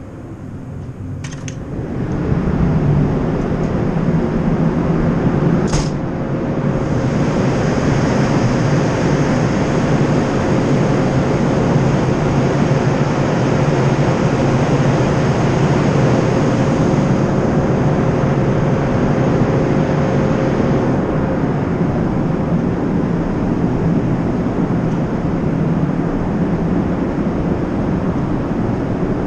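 Steady loud rush of wind and ship machinery and ventilation noise on a ferry's open deck, rising sharply about two seconds in as a door opens from the inside corridor onto the deck. A door latch clicks just before, and another click follows a few seconds later.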